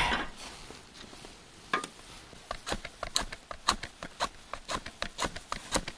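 Kindling sticks set down on a fire pit, then a match struck again and again against its box in short, sharp scrapes, about two to four a second, without catching.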